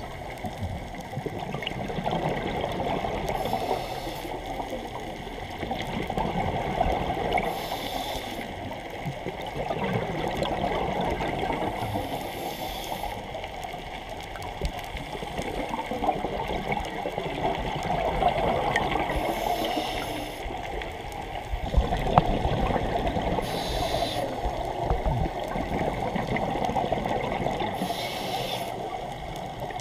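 Scuba regulator breathing heard underwater: a short hiss of inhalation roughly every four to five seconds, with the rumbling gurgle of exhaled bubbles swelling in between.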